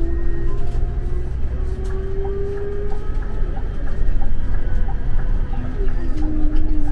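Scania Caetano Levante 2 coach heard from inside the cabin while moving: steady low engine and road rumble with a whine that slowly rises in pitch and falls away about five and a half seconds in, and small rattles.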